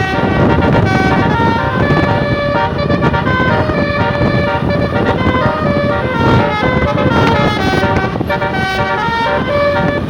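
Bus telolet horn: a set of musical air horns playing a quick melody of held notes that jump from pitch to pitch, over a steady low rumble.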